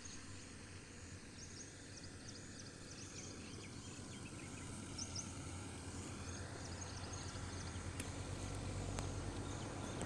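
Countryside ambience: small birds chirping in short, high calls through the first seven seconds or so, over a steady low rumble that grows slowly louder toward the end.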